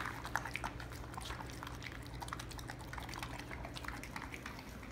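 Golden retriever eating raw meat from a feeding bowl: irregular wet chewing and smacking, with many small clicks as its mouth works in the bowl.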